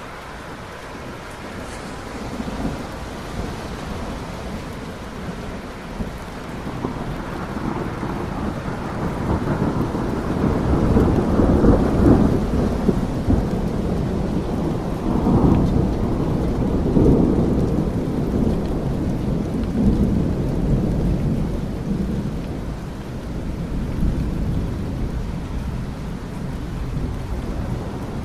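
Rain falling steadily, with a long roll of thunder that builds about a fifth of the way in, rumbles loudest around the middle, and fades out well before the end.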